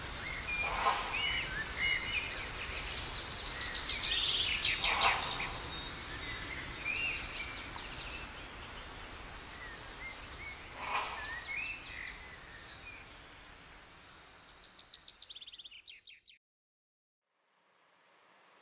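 Forest ambience of small birds chirping, whistling and trilling over a steady background hiss, with a few louder calls; it fades out to silence near the end.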